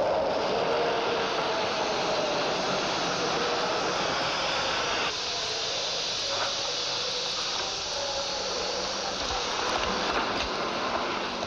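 Steady noise of a railway train, which changes and drops slightly about five seconds in.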